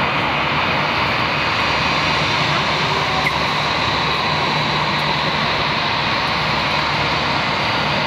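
Airbus A319-132's twin IAE V2500 turbofan engines running at taxi power as the jet taxis: a steady, even rush with a constant low hum and a high steady tone over it.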